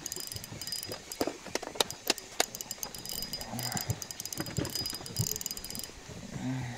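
Spinning reel being cranked to bring in a hooked fish against a bent rod, its gears and rotor giving off irregular clicks and rattles.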